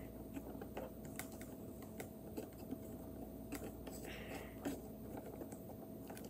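Light, irregular clicks and ticks of hands working a screw into a wooden crane kit's arm and handling its wood and plastic parts.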